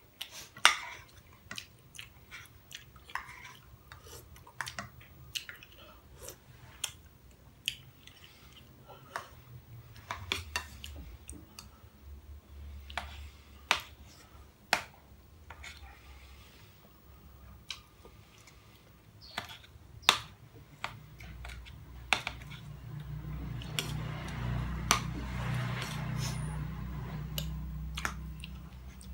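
Metal spoons clinking and scraping against ceramic bowls, with chewing, as two people eat; the sharp clinks come at irregular intervals. A low rumble rises in the last third and fades near the end.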